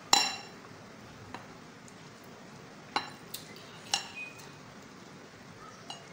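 A metal utensil clinking against a glass mixing bowl while flour dough is mixed: about half a dozen sharp clinks, the first the loudest and ringing briefly.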